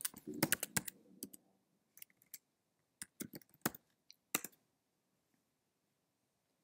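Typing on a computer keyboard: a quick run of keystrokes, then scattered taps, stopping about four and a half seconds in.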